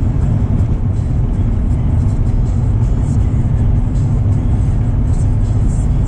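Steady low road and engine rumble inside the cabin of a moving car.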